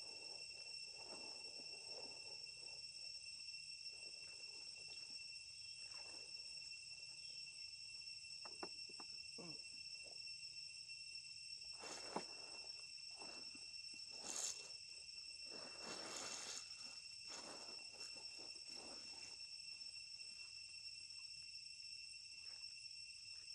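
Faint, steady high-pitched drone of insects, crickets or similar, holding several even pitches throughout. Scattered brief rustles and knocks are heard over it, with short louder bursts about halfway through.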